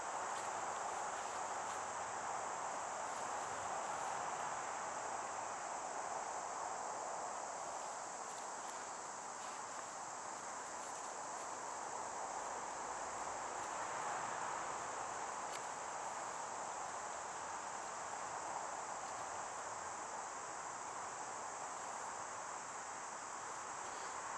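A steady chorus of insects, an unbroken high-pitched drone, with a few faint clicks of handling.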